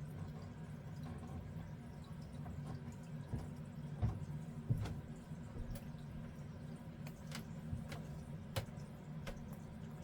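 Small scattered clicks and little drip-like pops, as a squeeze bottle of Nouveau Crystal Drops gloss is dabbed onto paper, over a steady low hum. The sharpest clicks come about four and five seconds in.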